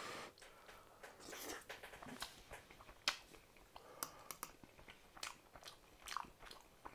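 Close-up chewing of a mouthful of mashed potato, with several sharp clicks of a metal fork against the plate.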